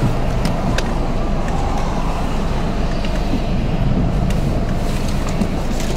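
Steady roar of strong tornado-storm wind buffeting the microphone, with a few faint ticks.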